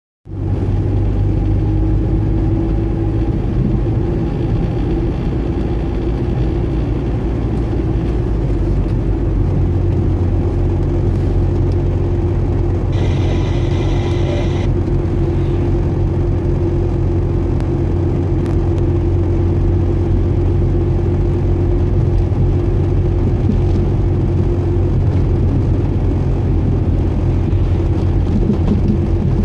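Car driving steadily on an asphalt road: a constant low engine and tyre rumble heard from inside the car. A brief high-pitched tone sounds for about a second and a half near the middle.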